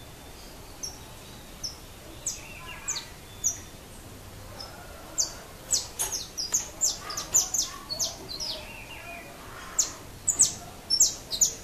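Saffron finch (canário-da-terra) singing: short, sharp high chirps that come singly at first, then in a fast run from about five seconds in, with another quick burst near the end.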